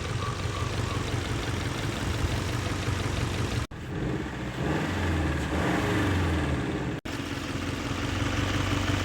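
Car engine idling, revved briefly in the middle, with the sound cutting out abruptly twice.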